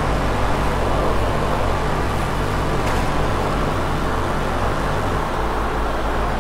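Paint spray booth's ventilation fan running steadily: a constant rushing hum of air and motor.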